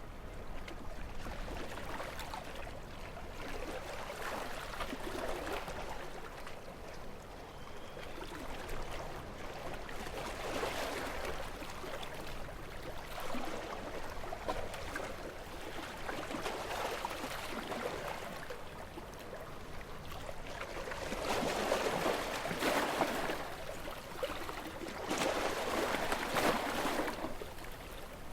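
Calm sea with small waves lapping and washing in slow swells, two larger swells near the end.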